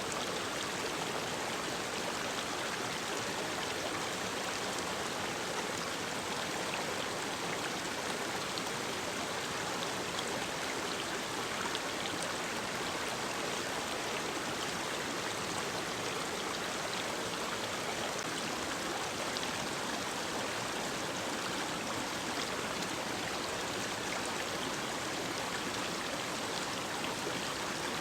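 Mountain stream running over rocks: a steady, even rush of water with small splashes flecked through it.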